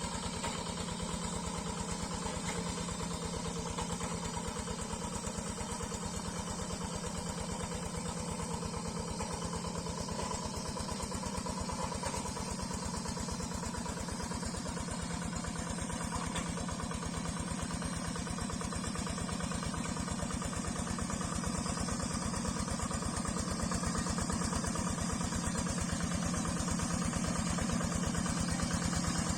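Quick G3000 Zeva hand tractor's single-cylinder Yanmar diesel engine running steadily while the tractor works deep, wet paddy mud. It gets slightly louder over the last several seconds.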